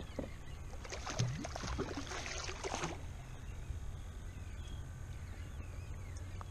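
A hooked jack crevalle splashing and thrashing at the surface beside a kayak for about two seconds, starting about a second in. After that comes a low steady rumble of wind and water.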